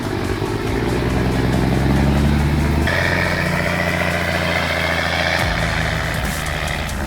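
Heavy vehicle engine running under load, over three edited clips that cut abruptly about three and five and a half seconds in. The middle clip adds a higher whine that wavers up and down.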